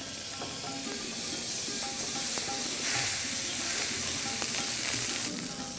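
Butter sizzling as it melts in a hot non-stick frying pan, a steady hiss that grows louder after a second or two and drops back shortly before the end.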